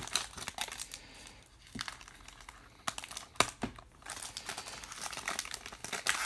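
Trading card pack wrapper being crinkled and torn open by hand, with a few sharp crackles about two to four seconds in and denser crinkling near the end.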